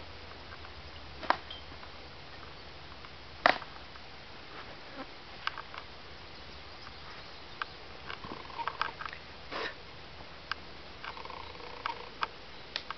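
Scattered light clicks, knocks and rattles of western saddle tack being handled as the saddle is cinched on a horse, with two sharper knocks in the first few seconds and a busier run of small clicks later on.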